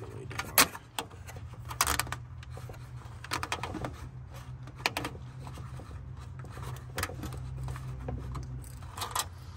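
Plastic radiator-fan mounting ties clicking and rattling as their retainers are pushed on by hand, in short bursts a second or two apart, over a steady low hum.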